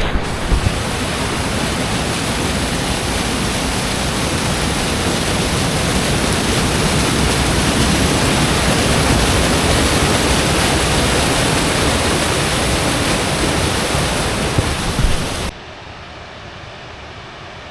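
Spring water pouring out of a canyon wall as a waterfall: a steady, loud rush of falling water. About fifteen seconds in it cuts off suddenly to a quieter, steady rush.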